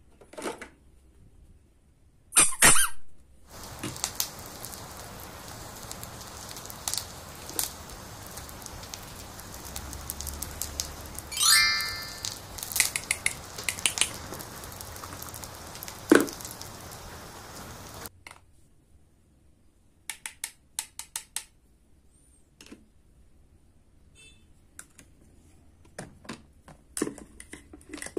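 Small plastic toy kitchenware clicking and knocking together. A steady hiss runs through the middle part, with a short rising tone partway through, then light scattered clicks and taps near the end.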